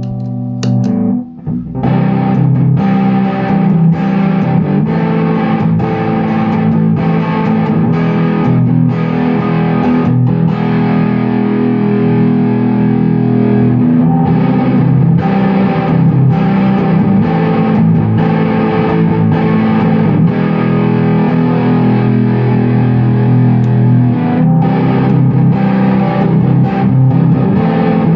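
Electric guitar played through a KHP FX Audio Ratten distortion pedal, heard dry with no other effects. A held chord cuts off about a second in, then strummed distorted chords and riffs follow without a break.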